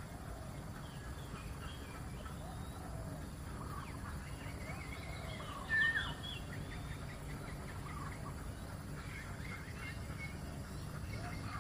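Birds chirping and calling over a low steady background noise, with one louder short call about six seconds in.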